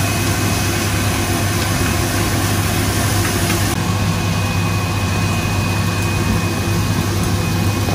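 Kitchen range-hood extractor fan running steadily, a constant low hum with a whooshing airflow.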